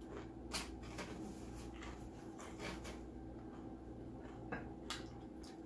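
Quiet eating sounds: scattered soft clicks and smacks of chewing over a faint steady hum.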